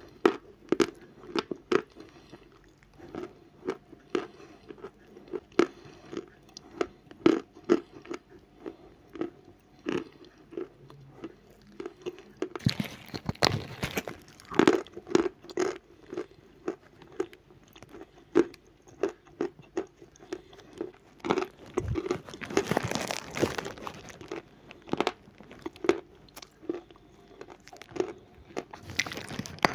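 A person biting and chewing a lump of natural chalk close to the microphone: a steady run of dry crunches, one or two a second. Twice there is a louder, crisper crackling stretch lasting a couple of seconds.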